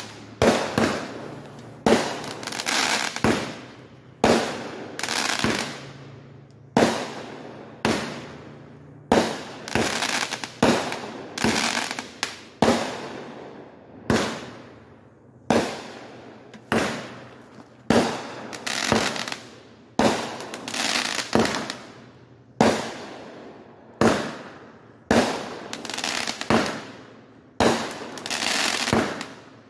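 Aerial fireworks going off in a fast series, about one shot a second. Each is a sharp bang followed by a noisy tail that fades within a second.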